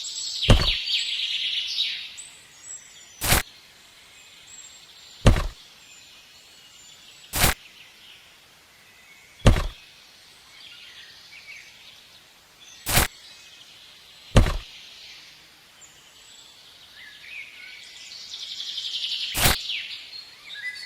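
A series of about eight sharp knocks, spaced unevenly every two seconds or so, with birds chirping faintly in the background.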